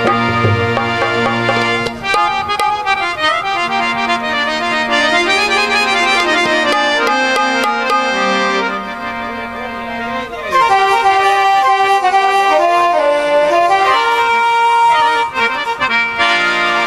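Harmoniums playing an instrumental melody: steady reed tones moving from note to note, growing louder a little after halfway.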